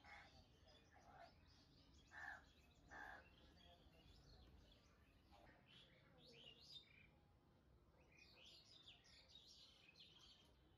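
Faint birdsong: small birds chirping in short quick notes, with two short louder calls about two and three seconds in.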